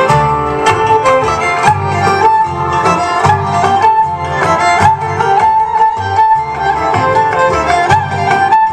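Violin-led Greek folk dance music with a steady beat and bass, played through loudspeakers for circle dancing.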